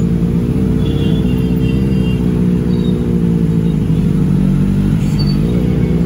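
Benelli 600i's inline-four engine running at a steady low rev through an aftermarket IXIL exhaust, its note holding nearly level with only slight rises and falls.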